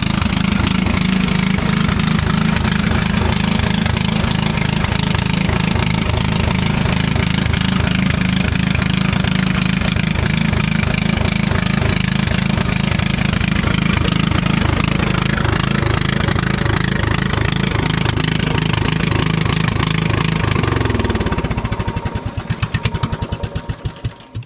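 Craftsman garden tractor's Kohler engine running with no muffler fitted, loud and steady. About 21 seconds in it is shut off: the pitch falls and the last firing strokes slow down and stop.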